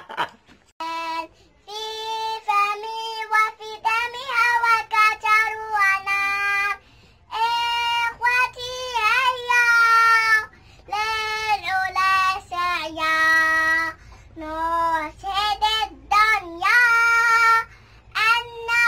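A young girl singing the national anthem solo and unaccompanied, in held phrases with short breaks between them.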